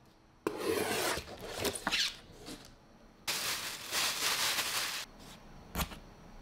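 A box lid being pulled open and tissue paper wrapping pushed aside: two stretches of paper rustling and scraping, then a single sharp tap near the end.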